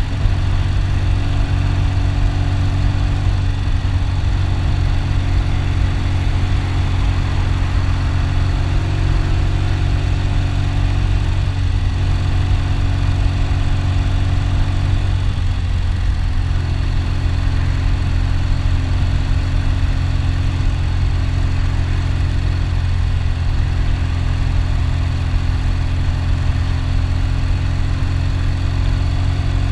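1972 Triumph Tiger's parallel-twin engine running steadily on the move, its note shifting a few times as the engine speed changes.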